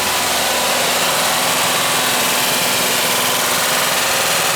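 Volkswagen T3 Westfalia's water-cooled flat-four (Wasserboxer) idling steadily soon after a cold start, tapping from hydraulic lifters that bled down during the cylinder head replacement and have not yet pumped back up.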